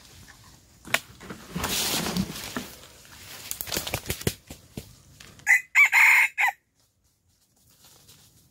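A rooster crows once about five and a half seconds in: a short, loud call of just over a second, a brief first note and then a longer drawn-out one. Before it there is intermittent rustling and crunching in dry leaves.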